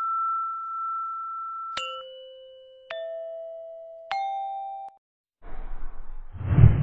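Outro sound effects: a held chime tone fading out, then three struck chime dings about a second apart, each higher than the last and ringing on. After a short gap comes a whooshing swell that ends in a deep thump, the loudest sound.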